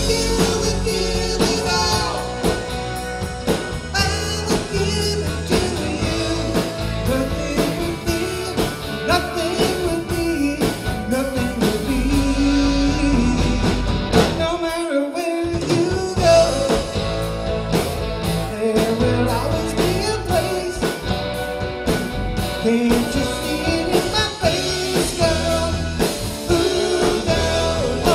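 A band playing rock-and-roll/blues with guitar and a singing voice.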